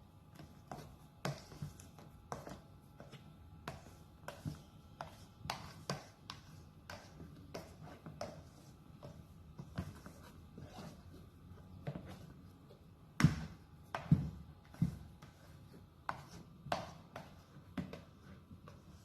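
Irregular light taps, clicks and scrapes of kitchen utensils against a bowl or pan, about one or two a second, with two louder knocks about two-thirds of the way through.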